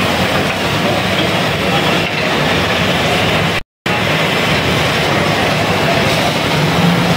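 Workshop din of metal lathes running in a copper-ware factory, a steady mechanical rumble and clatter of metal being worked. The sound drops out briefly a little past halfway.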